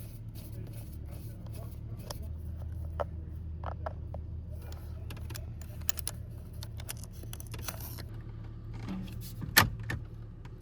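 Scattered small metallic clicks and knocks of hand work on a car's steering column, with one sharp, loud click near the end, over a steady low hum.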